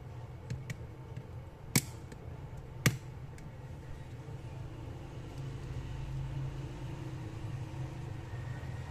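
Two sharp clicks about a second apart, with a few fainter ticks, as the opened Nokia 210 phone's display and keypad are pressed and handled. A steady low hum runs underneath.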